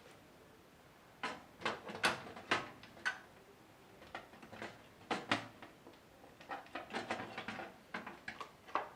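Irregular clicks and knocks of a 3.5-inch hard drive, a Toshiba P300, being handled and slid into the metal drive bay of a PC case, with its catch engaging.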